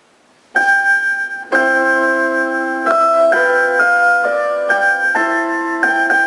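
A shortwave station's interval signal: a slow melody of sustained electronic-keyboard chords. It comes in after about half a second of faint radio hiss.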